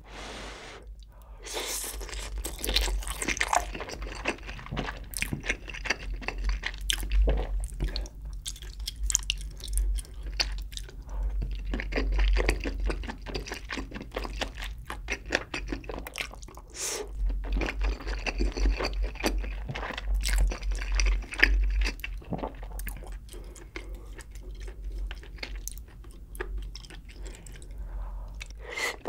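Close-miked eating of spicy braised chicken (jjimdak) and rice: continuous wet, clicky chewing and crunching mouth sounds, with a bite into a sauced piece near the end.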